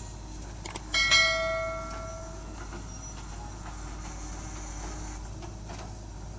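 The steel bucket of a JCB 3DX backhoe loader strikes something hard as it digs, with a sharp metallic clang about a second in that rings and fades over a second or so. The backhoe's diesel engine runs steadily throughout.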